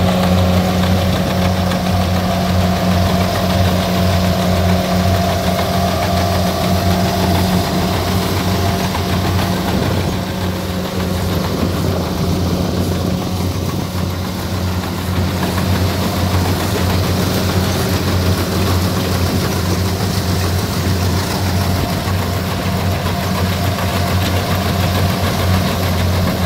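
Kubota combine harvester's diesel engine running steadily as the machine cuts and threshes flattened rice. It drops a little in loudness about midway, then comes back up.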